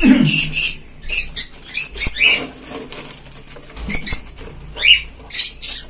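A small finch fluttering and scrabbling inside a cardboard box, in short irregular flurries, mixed with brief high chirps.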